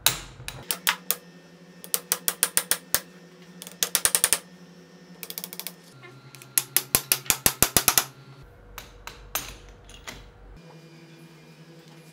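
Small mallet tapping a metal knee punch impactor to drive the tibial keel punch into a saw-bone tibia: several quick runs of light, sharp metallic taps, about eight a second, with short pauses between runs.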